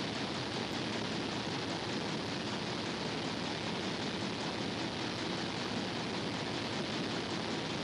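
Steady, even rushing noise that stays at one level throughout, with no knocks, clicks or tool strokes standing out.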